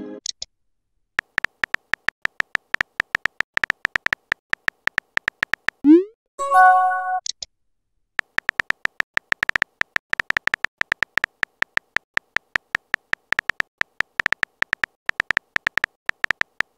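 Rapid clicking of a phone keyboard typing sound effect in two long runs, broken about six seconds in by a short rising swoop and a brief chime: a message-sent and message-received notification.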